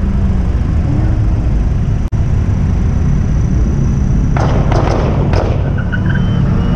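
Car engine running as a loud, steady low rumble, with a few short, sharp noisy bursts around four and a half to five and a half seconds in.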